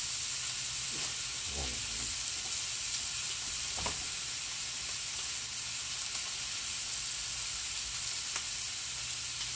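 Two thick chuck steaks sizzling steadily on a hot griddle set on a kettle grill.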